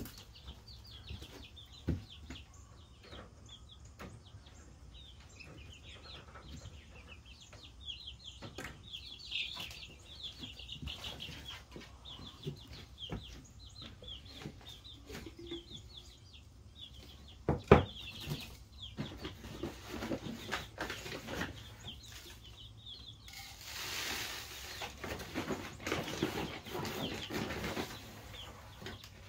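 A brood of young chicks, a couple of weeks old, peeping continually in short falling chirps, with scattered knocks, one of them loud a little past the middle. Near the end the peeping gives way to a few seconds of rustling.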